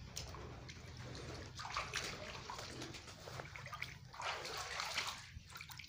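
Water in a stone stepwell splashing and sloshing as a hand scoops and stirs it, with louder splashes about two seconds in and again about four seconds in.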